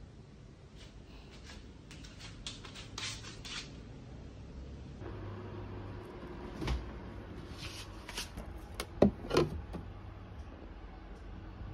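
Light handling rustles and clicks, then a refrigerator being opened and a glass liqueur bottle set into the fridge door shelf with two sharp clunks close together, about three-quarters of the way through.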